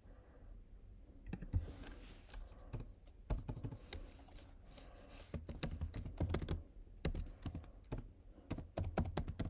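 Typing on a computer keyboard: a run of irregular key clicks, coming faster and closer together in the second half.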